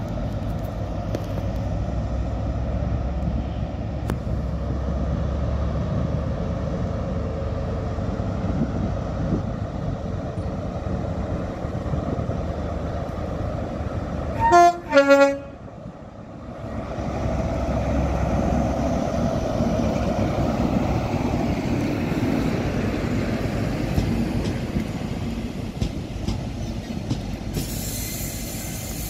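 Diesel engines of a Class 43 HST power car running, with two short, loud horn blasts about halfway through. The engine noise then grows as the train pulls out and passes close along the platform, with added rail and wheel noise near the end.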